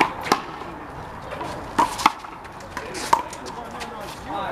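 A rubber handball slapped by hand and smacking off the wall and ground during a one-wall handball rally. There are five sharp smacks, the first four in close pairs.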